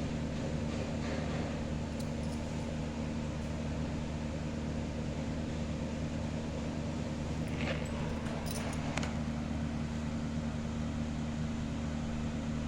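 A steady low mechanical hum, with a few brief high chirps or clicks about eight to nine seconds in.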